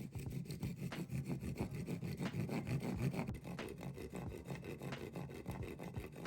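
Hand saw cutting through wood in a continuous run of strokes.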